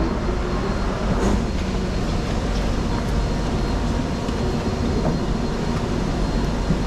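Steady hum and rush of a Singapore MRT train standing at an underground platform, its doors opening in the first seconds, with a thin high steady whine over the noise.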